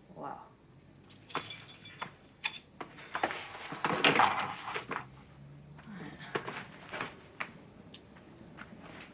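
Metallic jangling and clinking amid a series of knocks and clatters, with a bright jangle about a second and a half in and the loudest clatter around four seconds in.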